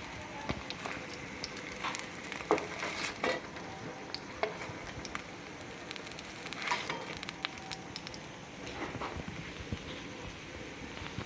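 Food frying and sizzling in hot oil in a pan, with scattered sharp clicks and knocks as it is cooked.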